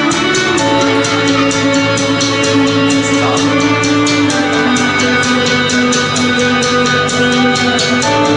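Rock karaoke backing track playing an instrumental passage: guitars over drums with a steady beat, and no voice singing.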